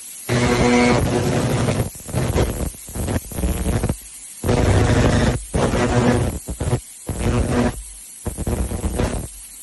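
300 W pulsed fiber laser cleaner ablating rust and grime from metal: a loud buzzing crackle with a steady hum running through it. It stops and starts several times, in bursts of one to two seconds.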